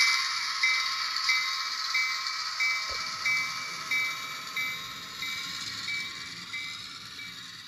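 A bell-like chime ringing about every two-thirds of a second over a steady hiss, fading away gradually, with a single soft thump about three seconds in.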